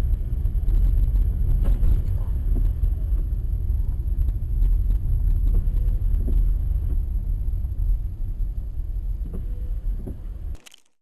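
Steady low rumble of a moving car with a few light knocks, cutting off abruptly near the end.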